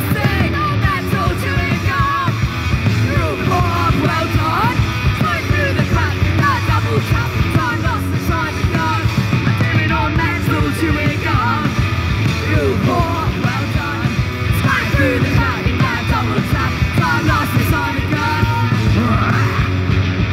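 Punk rock band playing live: electric guitar, bass guitar and drum kit, with shouted vocals.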